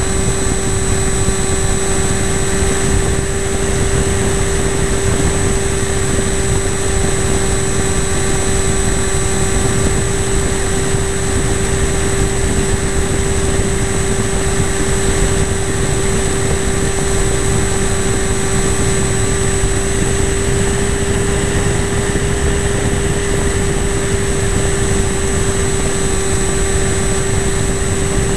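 Radio-controlled model airplane's motor and propeller running at a steady pitch, heard from the onboard camera, with constant wind rush over the microphone.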